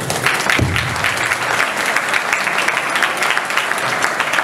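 Audience applause, many hands clapping, breaking out right after a speech ends and carrying on steadily.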